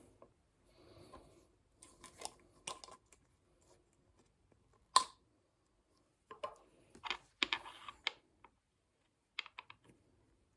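Light clicks and scratchy scrapes of a small hand tool working against a briar pipe bowl as putty-like, part-cured glue is pressed into a crack. There is one sharp click about five seconds in and a cluster of scraping around seven to eight seconds.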